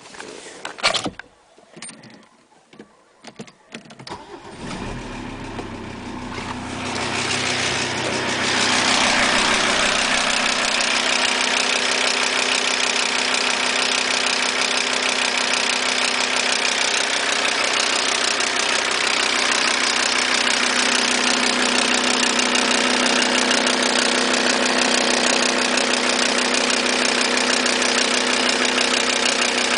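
A few knocks, then the Audi A6's 2.5 TDI five-cylinder diesel engine comes to life about four seconds in, grows louder until about nine seconds and then idles steadily with the ticking noise under investigation. The cause of the tick turned out to be a damaged key on the crankshaft timing-belt sprocket: the cam ran 6-8 degrees advanced, and the inlet valves touched the pistons.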